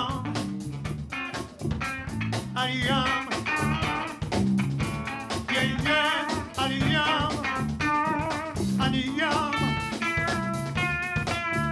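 Electric guitar solo with bent, wavering notes over bass guitar and drum kit playing a funk groove.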